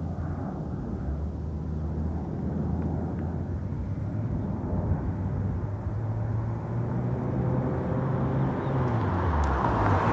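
Nissan Skyline's RB20DET turbocharged straight-six, fitted with a Kakimoto Regu exhaust and no mid pipe, running with a low drone that steps up and down in pitch, then growing louder toward the end as the car draws near for a fly-by.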